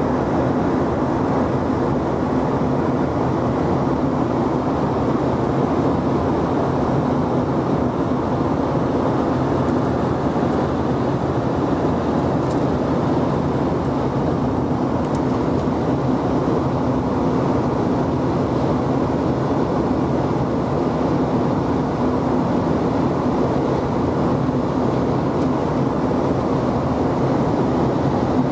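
Steady cabin noise of an Embraer ERJ-145 regional jet in flight: the even rush of airflow and its two rear-mounted turbofan engines, with a steady low hum running through it.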